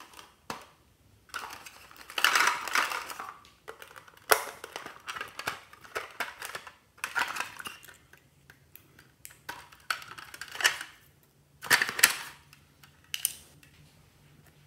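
Small hard plastic toy pieces being handled: taken out of a toy fridge and set down, clicking and rattling in irregular bursts with short pauses between.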